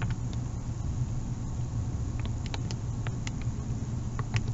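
Several light clicks from the keys of a TI-84 Plus graphing calculator being pressed, at irregular spacing, over a steady low hum.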